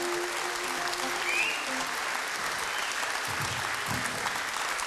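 A large seated audience applauding, a steady dense clatter of many hands, while the last held note of the song fades out in the first second or so.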